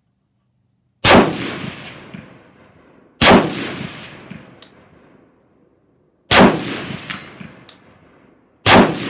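Four rifle shots, the first two about two seconds apart and the last two about two and a half seconds apart, each ringing out in a long echoing tail.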